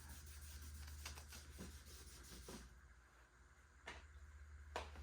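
Near silence: a steady low hum with a few faint, scattered clicks and taps.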